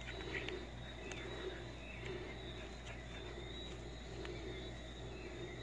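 Footsteps of a brisk walk on a paved road, soft thuds at about three steps every two seconds, over a faint steady hum.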